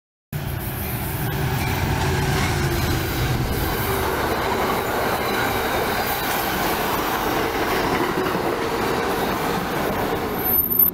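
Amtrak passenger train running past at speed, a steady rush and rumble of wheels on rail, with a brief high squeal near the end.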